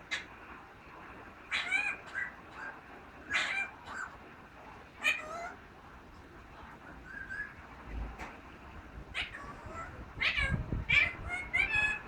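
Parrot calling: short, meow-like calls with bending pitch, three spaced a second or two apart, then a quicker run of them near the end.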